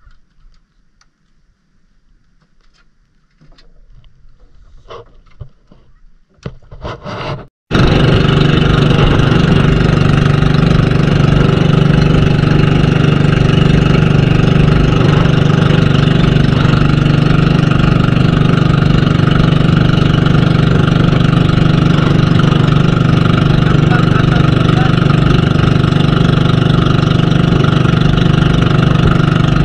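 Outrigger boat's engine running steadily under way. It comes in suddenly about eight seconds in, after a few faint knocks and clatter.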